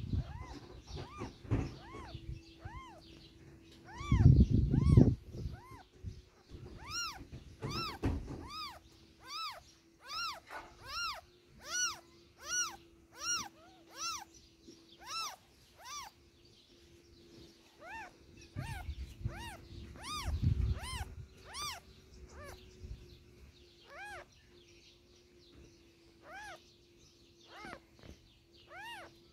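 A cat mewing: a long run of short, high mews that rise and fall in pitch, about two a second, thickest in the middle. Low thumps come about four, eight and twenty seconds in, and a faint steady hum runs underneath.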